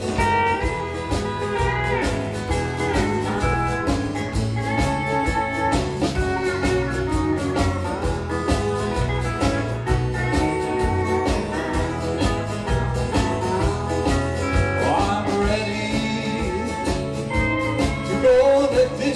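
Live country band playing an instrumental break: electric stage piano and guitar over a stepping bass line and a steady beat, with a sliding note about three-quarters of the way through.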